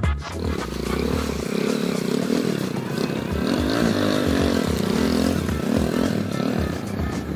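Small motorcycle engine running, its pitch rising and falling with the throttle as it rides over a rutted, muddy road.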